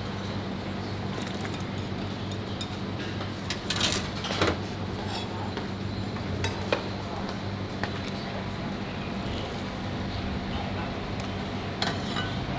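Kitchen clatter: a few scattered clinks of metal ladles and strainers against pots and china bowls, over a steady low hum.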